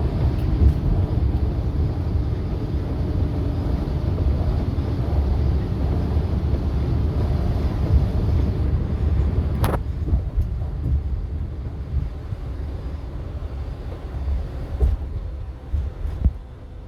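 Inside a moving coach: steady low engine and road rumble. A sharp click comes about ten seconds in, and the rumble eases in the last few seconds, with a few knocks.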